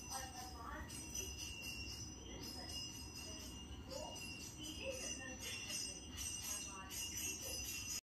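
Jingle bells ringing in a steady shaken rhythm over a high ringing tone, like an outro jingle. A few short rising chirps from Indian ringneck parakeets come through softly.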